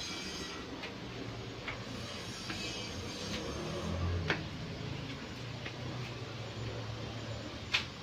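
Footsteps climbing tiled stairs: short clicks at about one a second, the loudest about halfway and near the end, over a low steady hum.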